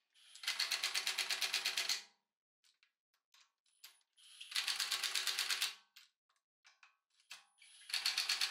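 Three bursts of rapid mechanical clicking, each lasting about a second and a half, with a faint high whine just before each one.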